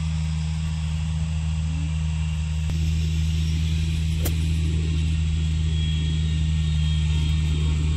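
A steady low hum like an idling motor throughout, with a single sharp click about four seconds in as a golf club on a practice swing comes down through the turf.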